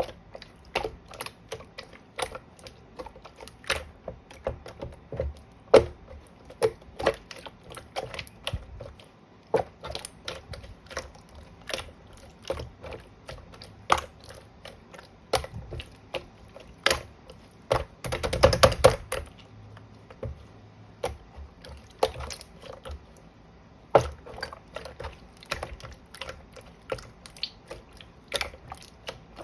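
Clear slime being pressed and folded by hand, giving irregular sharp clicks and pops from trapped air, with a denser run of crackling about two-thirds of the way through.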